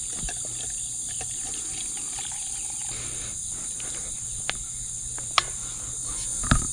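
Steady high-pitched insect chorus, with a few sharp knocks late on, the loudest about six and a half seconds in.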